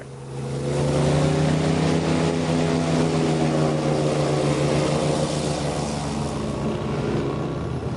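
Airboat running at speed, its engine and air propeller making a steady droning note with a hiss above it. It swells during the first second, then holds, easing slightly as the boat pulls away.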